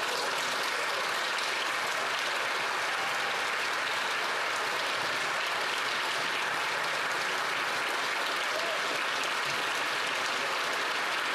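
A chamber full of legislators applauding: dense, steady clapping that holds at one level throughout, with a few faint voices under it.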